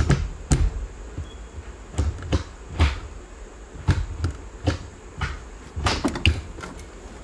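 Honda CRX manual gear lever being shifted back and forth through the gears: a quick, irregular series of sharp clicks and clunks as the short-throw shifter on new aluminum bushings snaps into each gate.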